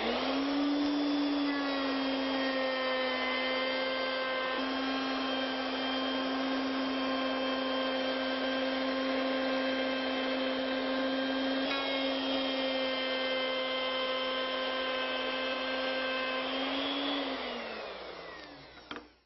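Router fitted with a 3/4-inch core box bit, spinning up and running at a steady pitch while it cuts a cove along a board's edge, then winding down with falling pitch near the end.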